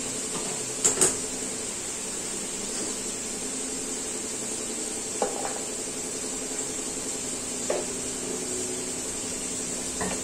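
A few brief clinks of pots or utensils, two close together about a second in and single ones later, over a steady low hum and hiss.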